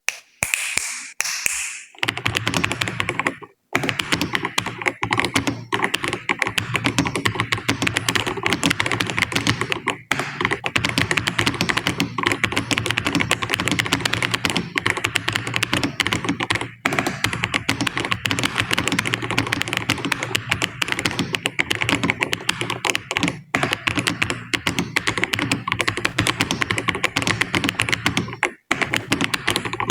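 Computer keyboard being typed on fast and continuously during a typing test, at about 73 words per minute. The stream of key clicks breaks off briefly a few times.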